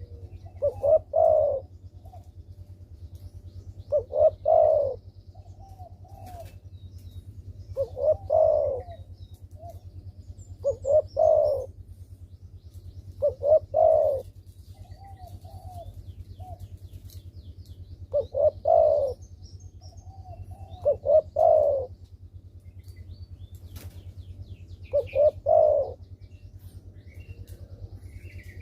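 Spotted dove (derkuku) cooing: a short phrase of a few low coo notes, repeated about every three seconds, eight times, over a steady low hum.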